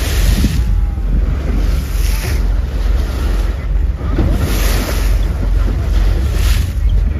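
Wind buffeting the microphone on a moving boat, over the rush of sea water along the hull, with a hissing splash swelling every couple of seconds.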